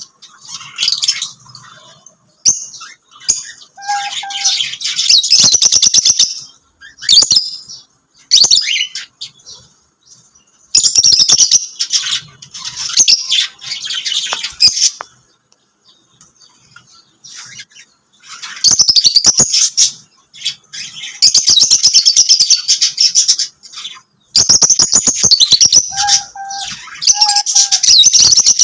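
Lovebirds chirping and chattering in fast, high-pitched spells a few seconds long, with short pauses between them.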